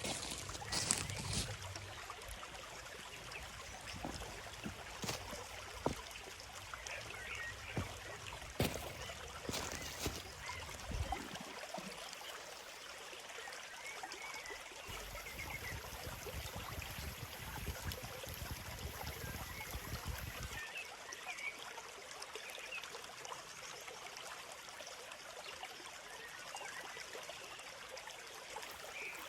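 A small stream babbling steadily over stones, with a few faint bird chirps and some light knocks during the first ten seconds or so.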